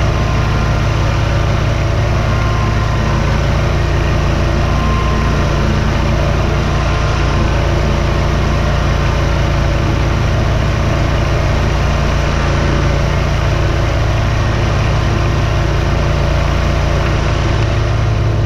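Hustler X-One zero-turn mower engine running steadily under load while mowing tall pasture grass.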